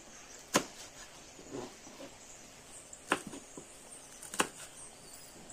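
A kitchen knife slicing on a plastic cutting board, giving a few sharp taps spaced one to two seconds apart. The loudest tap comes about half a second in and two more come later.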